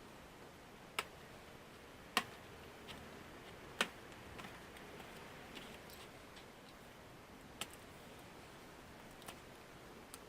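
Scattered sharp clicks and taps from a Chromebook being taken apart by hand, about eight in all, the three loudest in the first four seconds and the rest fainter and more spread out.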